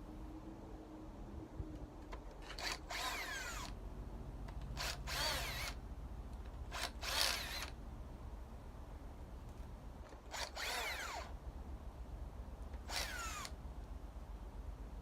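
A power drill spinning out the already-loosened rocker arm bolts of a 5.3 LS V8, in five short whirring runs, each winding down in pitch as the trigger is let go.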